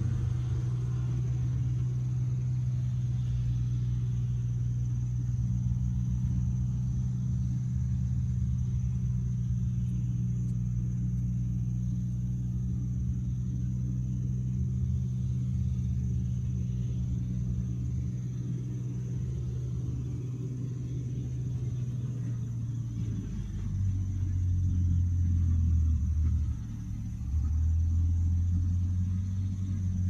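Heavy diesel machinery, a whole-tree chipper being fed by a knuckleboom loader, running with a steady low drone. About three-quarters of the way through, the pitch drops, and a moment later the sound briefly dips.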